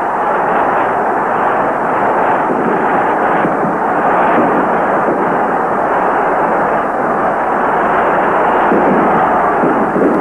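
A large football stadium crowd cheering as one dense, steady wall of noise that swells a little midway. It sounds dull and muffled, as on an old film soundtrack.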